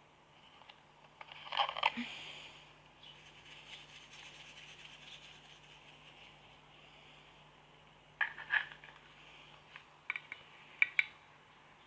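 Slime being handled: three short clusters of sharp clicks and crackles, about a second and a half in, at about eight seconds and near the end, with a faint hiss between.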